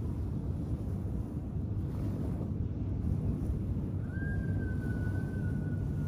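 Gentle ocean surf washing onto a sandy beach under a steady low rumble of wind on the microphone. About four seconds in, a thin, steady whistle-like tone starts and holds for about two seconds.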